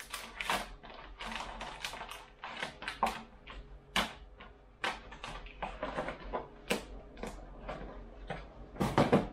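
Packaging being handled: a plastic bag crinkling and a small box and parts clicking, in irregular rustles and sharp clicks, with a cluster of louder clicks near the end.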